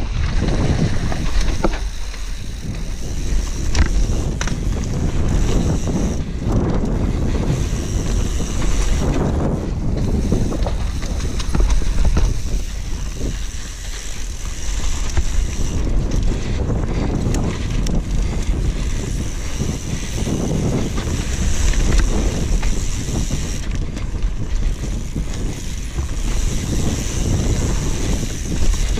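Mountain bike descending a dry dirt trail at speed: wind buffeting the microphone and tyres rolling over dirt and rocks, with frequent clicks and rattles from the bike.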